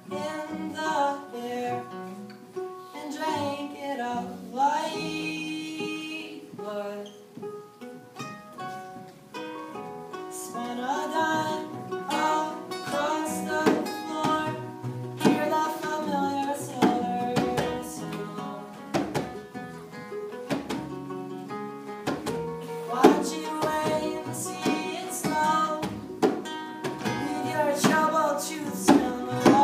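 Acoustic song: plucked and strummed acoustic guitar with a singing voice.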